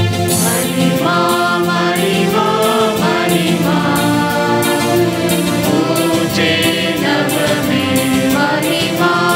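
A church choir singing a hymn, with long held notes from an accompanying instrument underneath.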